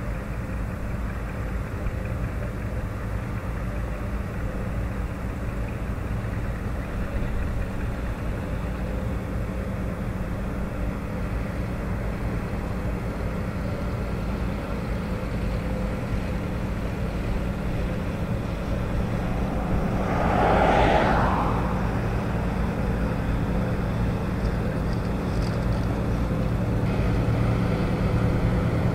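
Antique farm tractor engines running steadily while pulling plows, with one brief louder swell about two-thirds of the way in.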